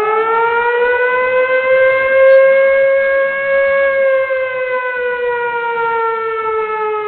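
A civil defense siren winding up, holding one long wail, then sinking slowly in pitch near the end.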